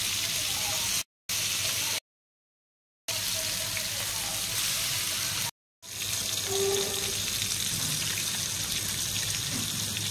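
Fish sizzling as it shallow-fries in hot oil in a pan, a steady hiss cut by three short silent gaps.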